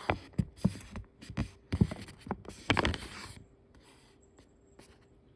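A run of sharp crackles and rustles lasting about three and a half seconds, then quiet.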